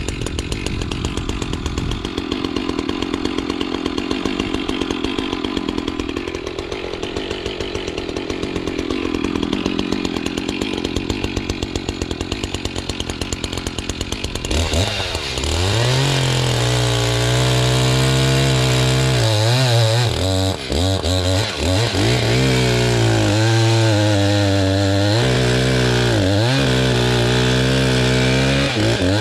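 Chainsaw crosscutting a hardwood log at full throttle. For the first half the engine runs at a high, steady pitch. About halfway through it drops to a lower note that sags and recovers over and over.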